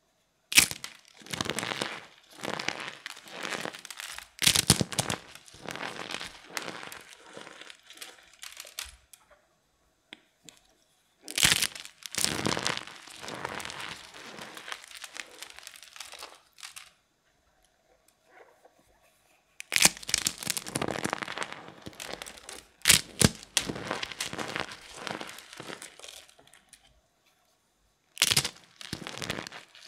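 Starch-filled eggshells crushed by hand: each bout opens with sharp cracks of shell breaking, followed by crunching and crackling of shell fragments and packed starch. There are four bouts with short pauses between them.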